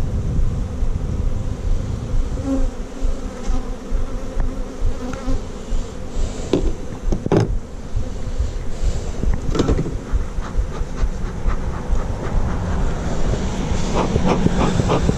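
Swarm of agitated honeybees buzzing steadily, with a few sharp knocks about halfway through and a quick run of ticks near the end.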